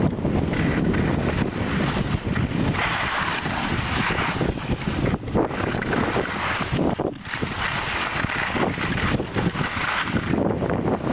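Wind rushing over the microphone of a skier going downhill, with the hiss and scrape of skis on snow. The noise comes in uneven surges.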